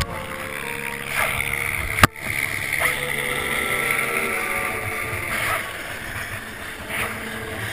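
Helicopter flying close past: steady rotor and engine noise, with wind on the microphone. Two sharp clicks, one at the start and one about two seconds in.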